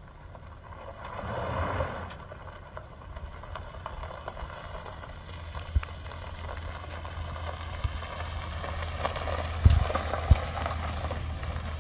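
A 2005 Chevrolet Silverado 1500's 4.8-litre V8 running steadily at idle. A few sharp knocks come in over it, the loudest two near the end.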